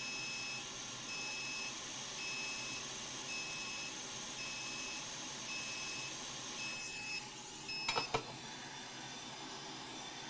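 An electronic beep repeats about once a second, each beep about half a second long, over a steady hiss. The beeping stops about eight seconds in, followed by a few light clicks.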